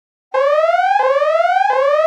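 Electronic siren starting abruptly about a third of a second in: a pitched tone that rises over about 0.7 s, drops back at once and rises again, repeating at a steady rate.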